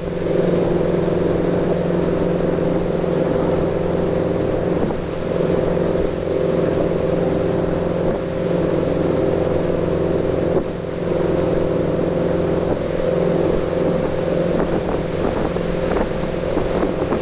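A ski boat's inboard engine running steadily at towing speed, with the rush of water from the wake behind it.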